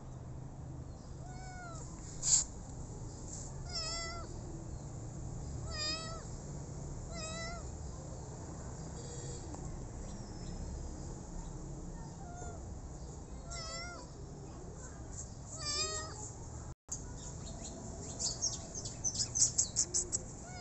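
Ginger kitten, sick with pneumonia, meowing about seven times: short calls with a wavering pitch every one to two seconds, with a pause in the middle. A single sharp click comes a couple of seconds in, and a quick run of loud crackling clicks near the end.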